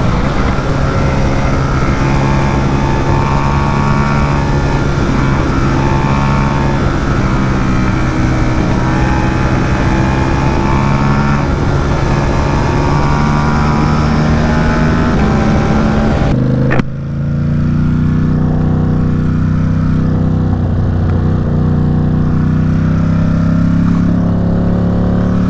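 Ducati SuperSport 950 S's 937 cc L-twin engine under way, its pitch rising and falling with the throttle under heavy wind rush. About two thirds of the way in there is a sharp click and a short dip, and the wind rush drops away, leaving the engine running steadily.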